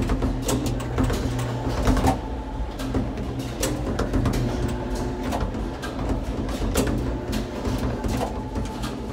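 Gateway Arch tram capsule running along its track inside the arch's leg: a steady low mechanical hum with frequent irregular clicks and clanks.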